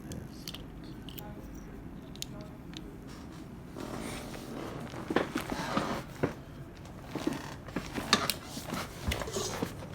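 Rustling and handling noises over a low steady hum, growing louder about four seconds in, with many sharp clicks and knocks.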